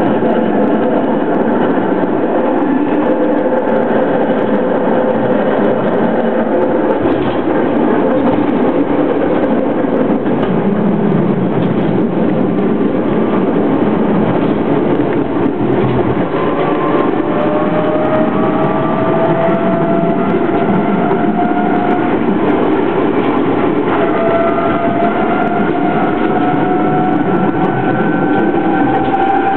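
Narrow-gauge electric tram running along its track, heard from inside: a steady loud rumble of wheels and running gear. About halfway through, and again near the end, a traction motor whine rises in pitch as the tram picks up speed.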